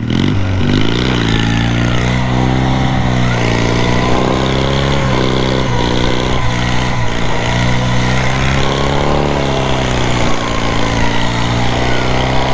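Twin-cylinder riding lawn mower engine fitted with a cheap aftermarket muffler, running under load as the mower drives through snow. Its speed climbs in the first second or two, then sags and recovers a few times.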